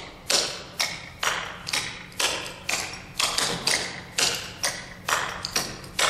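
Metal clogging taps striking a wooden dance floor as the Charleston clogging step is danced: double step, touch, toe-heel, rock step. Sharp taps come about twice a second, some in quick pairs.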